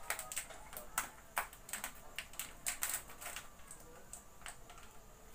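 Irregular light clicks and taps, a dozen or so scattered at uneven intervals, the sharpest about a second in.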